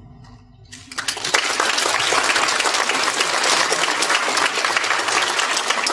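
The last piano chord fades out, then audience applause breaks out about a second in and carries on steadily.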